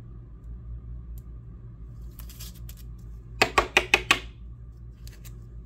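Trading cards being handled by hand: a brief soft rustle, then a quick run of about six sharp clicks in under a second, over a steady low hum.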